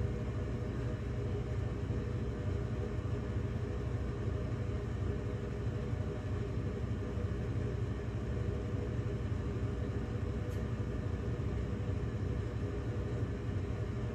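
Steady low rumble and hiss of background noise with no distinct events.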